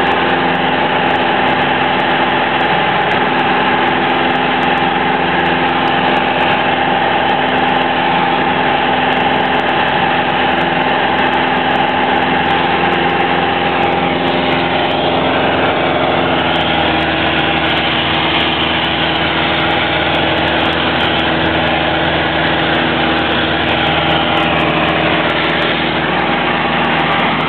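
Piper Warrior PA-28-161's four-cylinder Lycoming piston engine and propeller heard from inside the cabin in cruise, a loud steady drone. The tone shifts slightly about sixteen seconds in.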